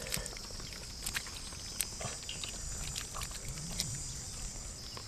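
Bare hands digging and scooping in wet paddy mud, giving scattered short wet clicks and squelches. A steady high-pitched drone runs under it and fades near the end.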